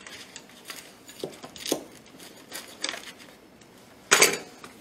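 A knife cutting through a crusted grilled cheese sandwich on a plate: scattered short crunching scrapes and clicks, with one louder, brief noise about four seconds in.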